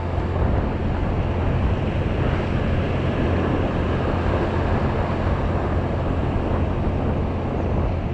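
Strong wind buffeting the microphone with a steady low rumble, over the wash of small waves on the beach.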